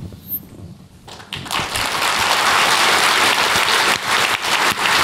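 Audience applauding, starting about a second in and quickly swelling to full, steady applause.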